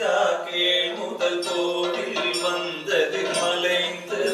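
Chant-like singing in the Tholpavakoothu shadow-puppet style, over a steady drone that holds underneath.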